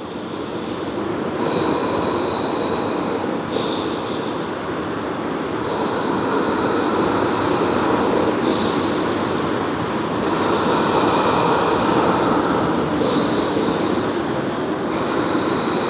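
Ocean surf: a steady wash of breaking waves that slowly swells and eases, with a higher hiss that cuts in and out several times.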